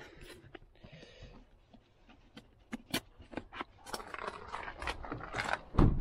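Handling noise from a cardboard box: scattered clicks and a brief rustle about a second in. Near the end comes a loud, low thump.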